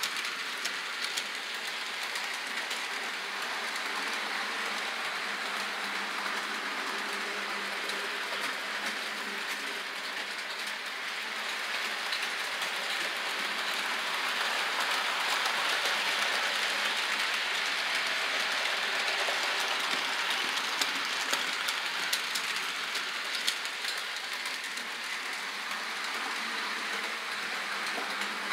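Model trains running on layout track: a steady electric motor hum with the wheels clicking over the rail joints, growing louder about halfway through as a diesel locomotive and its freight cars pass close by.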